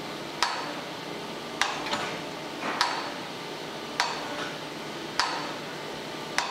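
Surface grinder running, its table knocking sharply each time it reverses, about every 1.2 s, over the steady hum and hiss of the wheel, which is just touching off on a straight-edge casting.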